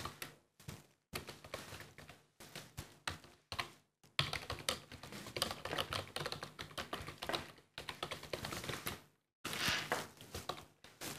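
Typing on a computer keyboard: runs of quick keystrokes broken by a few short pauses.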